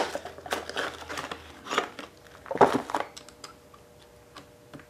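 Clear plastic packaging of a set of T-handle hex keys crinkling in several irregular bursts as the keys are handled and pulled out, followed by a few light metal clicks near the end.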